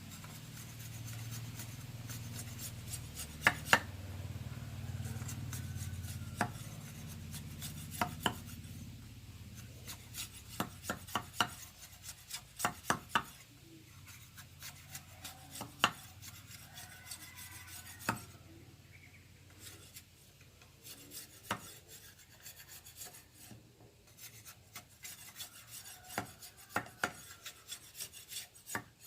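Irregular sharp taps and scraping of a blade cutting and whittling a piece of bamboo, with some strokes coming in quick runs.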